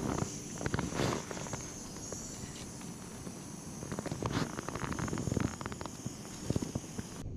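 Gas canister stove burner burning with a steady high hiss, with a few knocks and clatters as the insulated cooking cup is set onto it. The sound cuts off suddenly near the end.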